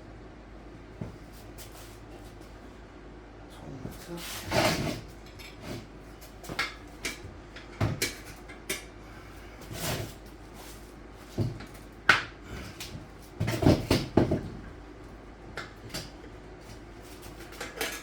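Metal tire spoons levering a dirt bike tire's bead over the rim: irregular clinks and knocks, with longer scraping, clattering spells twice, a few seconds in and again about two-thirds through.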